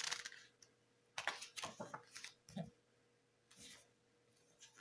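Pages of a thick paper booklet being handled and turned: a few soft, brief paper rustles and taps.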